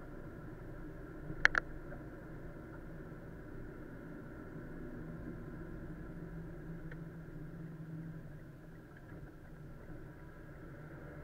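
Steady car engine and road noise heard from inside the cabin through a dashcam microphone, with a sharp double click about a second and a half in and a faint tick later.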